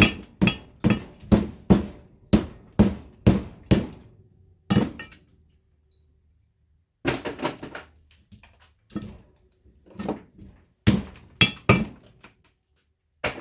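Hammer blows on the steel case of a light ballast being broken apart for its copper windings: about nine quick metal knocks at roughly two a second, a pause of about two seconds, then more scattered knocks.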